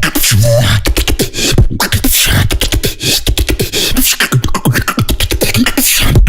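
Beatboxing: a fast, dense run of mouth-made kick, snare and click sounds over deep bass tones, with short pitched vocal effects mixed in.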